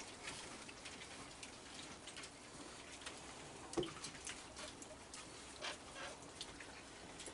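Faint scattered clicks and scuffs of a crowd of raccoons eating and shuffling on a wooden deck, with one sharper click about four seconds in.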